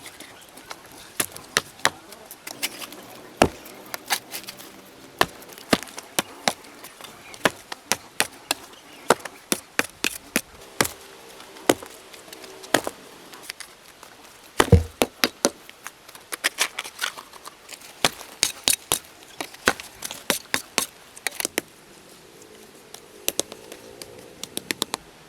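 Irregular sharp knocks and chops, like hand-tool strikes on wood, coming singly or in quick runs of several a second, with one heavier thud about fifteen seconds in.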